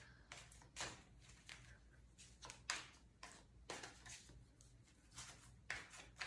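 Tarot cards being shuffled by hand: a faint, steady run of soft card flicks and slaps, about three a second.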